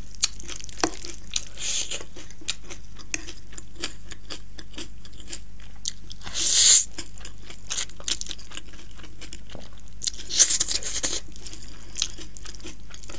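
Close-miked eating sounds of spicy Buldak instant ramen noodles: wet chewing and smacking mouth clicks throughout, with a loud noodle slurp about six seconds in and another about ten seconds in.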